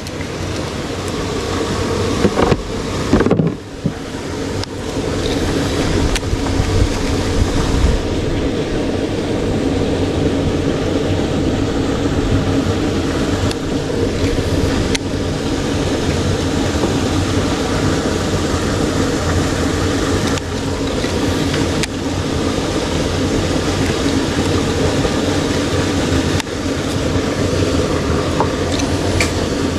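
Boat engine running steadily at an even speed, a constant drone.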